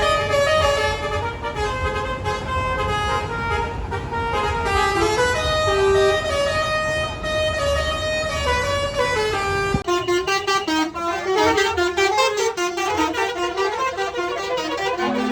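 Telolet musical bus horn playing a tune of held notes that step up and down in pitch, over a low engine rumble. About ten seconds in the sound changes abruptly: the rumble drops away and a quicker run of horn-like notes follows.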